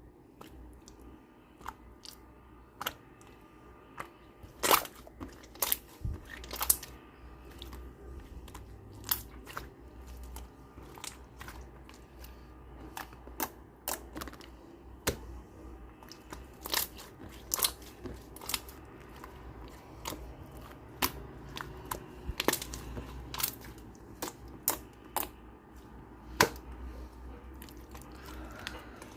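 Hands playing with slime: irregular sharp clicks and pops as it is pressed and stretched, over a soft squishing.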